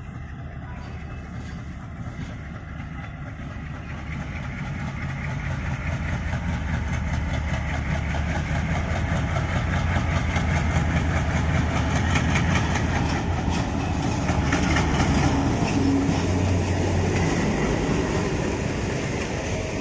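A diesel locomotive hauling a passenger train approaches and passes: the engine's low rumble grows steadily louder over the first half. The coaches then roll by with a repeating clickety-clack of wheels over the rail joints.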